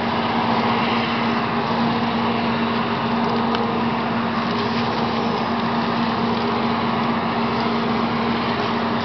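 Outboard motor of a fishing boat running steadily: a constant hum over an even rushing noise.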